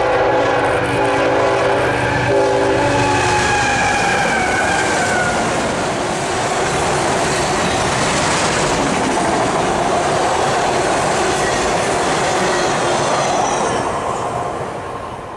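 Freight locomotive's air horn blowing for the first few seconds as the train approaches, then the steady rumble and clickety-clack of autorack freight cars rolling past, with thin high wheel squeals early on. The noise fades near the end.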